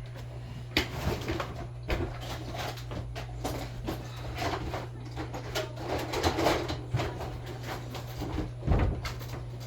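Irregular knocks and clatter of things being moved and handled, over a steady low hum.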